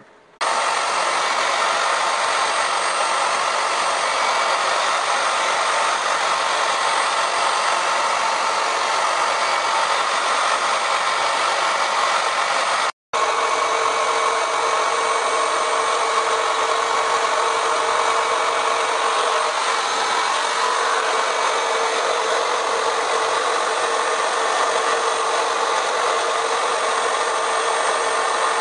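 Wood router running steadily, routing out a wooden board. It cuts out for an instant near the middle, then carries on.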